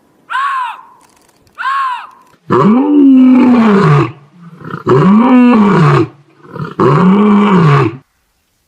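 Animal calls: two short higher-pitched calls, each rising and falling, then three long, loud, deep calls about a second and a half each, each rising then falling in pitch.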